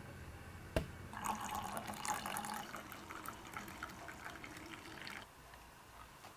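A sharp click about a second in, then hot water poured from a kettle's spout into a ceramic mug, splashing as it fills for about four seconds before stopping.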